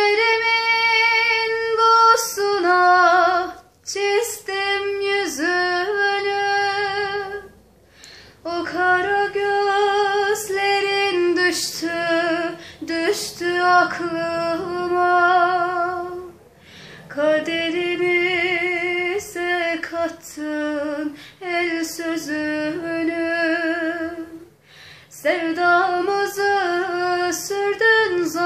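A woman singing a slow Turkish song with a strong vibrato, in long held phrases separated by short, nearly silent pauses.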